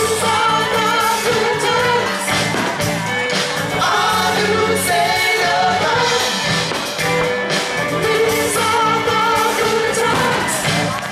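Pop music with singing voices over a full band backing, steady and loud.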